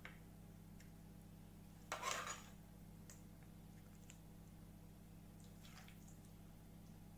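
A steel spoon scraping and clinking against a plate for about half a second, about two seconds in, over a faint steady hum; otherwise near silence.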